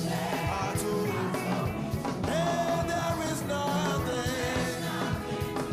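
Gospel worship song: voices singing a melody over band accompaniment with a steady beat.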